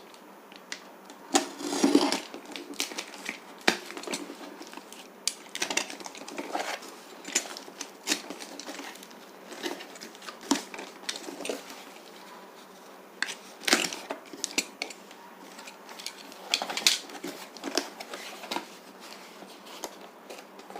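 A shipping package being opened by hand: scattered crackles, scrapes and knocks of cardboard and plastic packing being handled.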